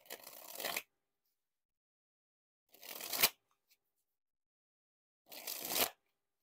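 Bicycle Majestic playing cards being dribbled three times, each a quick rush of cards dropping off the thumb that lasts under a second, grows louder and stops abruptly.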